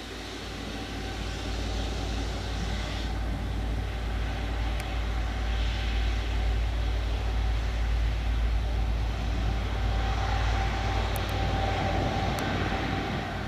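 Boeing 777-300 airliner taxiing past at close range: the jet engines run at low thrust with a steady rumble and a held whine, growing louder over the first few seconds as the aircraft comes nearer.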